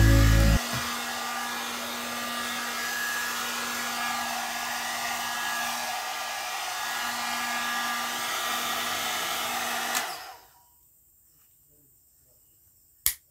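Two-in-one hair dryer and straightener brush running steadily, blowing air with a low motor hum, then switched off about ten seconds in. A short click near the end.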